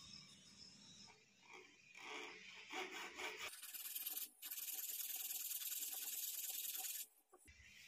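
A hand tool scraping and rasping on wood, cutting out a chip-clearance relief in a wooden hand-plane body: a few irregular strokes, then a steady hiss of about three and a half seconds with a brief break, stopping sharply near the end.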